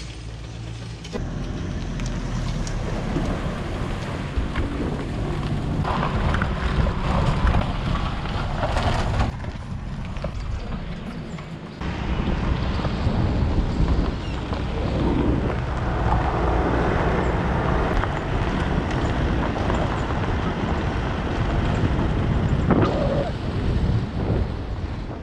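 Boat on a trailer being towed over a rough dirt road: a steady low rumble of tyres and jolting, with wind buffeting the boat-mounted microphone.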